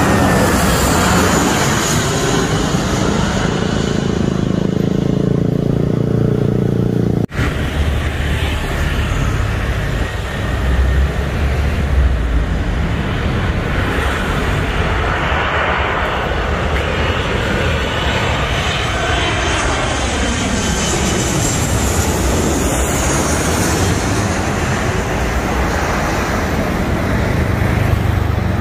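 Jet airliners on final approach passing low overhead, with loud, continuous engine noise and whining tones that fall in pitch as each goes by. First comes an Airbus A320; after an abrupt cut about seven seconds in, a Boeing 737-900ER approaches.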